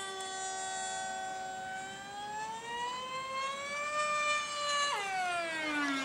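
Radio-controlled model airplane's motor and propeller whining overhead, the pitch sagging, slowly rising, then dropping sharply about five seconds in.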